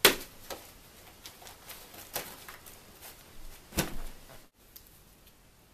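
Paper handling and body movement: homework sheets pulled out from under a dog, with a run of short rustles and knocks about every second. The loudest comes at the very start, another strong one a little before four seconds in. After that only faint room tone.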